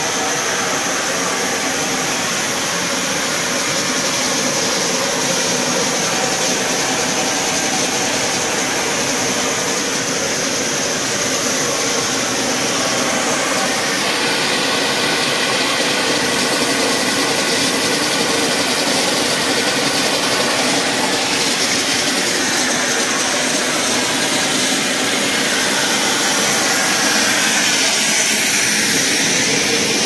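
EVA spiral hose extrusion line running: a steady, loud mechanical whir and hiss from its motors.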